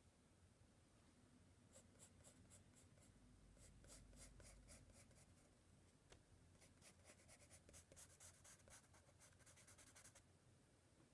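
Faint scratching of a graphite sketching pencil drawing short strokes on sketchbook paper. It starts about two seconds in, pauses briefly in the middle, then goes on in quicker strokes until near the end.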